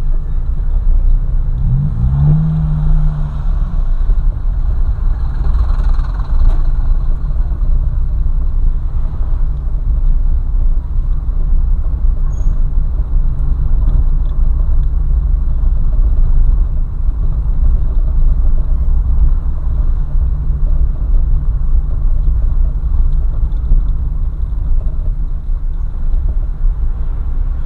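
Car driving on the road: a steady low rumble of engine and road noise. A short pitched sound rises and falls about two seconds in.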